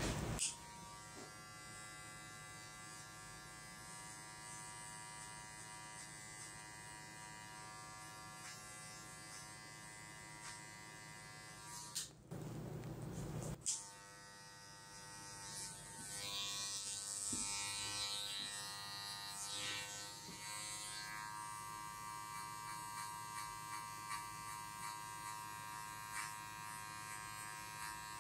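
Electric hair clipper buzzing steadily as it cuts hair at the side of the head. It stops briefly about twelve seconds in, then runs again, with a rougher rasp for a few seconds as the blade works through the hair.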